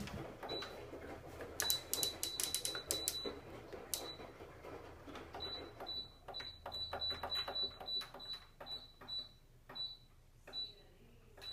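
Laundry appliance control panel clicking, each click with a short high electronic beep: a quick run of beeps, then slower single beeps that thin out near the end.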